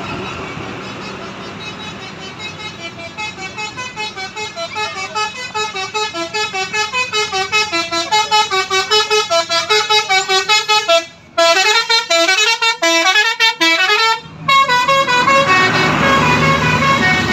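Bus's multi-tone 'telolet' musical horn playing a fast tune of short notes, about five a second, growing louder over the first several seconds. It cuts out briefly twice, then holds longer notes over the bus engine's rumble near the end.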